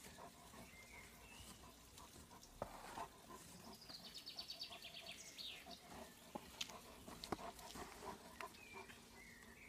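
Faint scraping and soft knocks of a German shepherd's paws digging in loose soil, with small birds chirping and a short fast trill about four seconds in.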